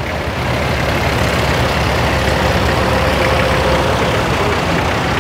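Vintage tractor engine running steadily as the tractor drives slowly past.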